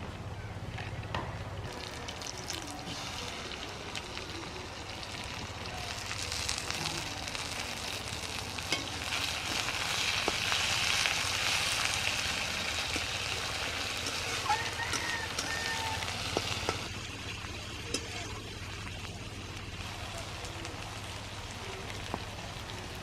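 Food sizzling as it fries in hot oil in a pan, with occasional clicks from stirring. The sizzle swells a couple of seconds in and eases off well before the end.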